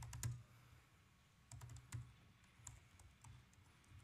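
Faint typing on a computer keyboard: irregular keystroke clicks, some in quick runs, as a command is typed into a terminal.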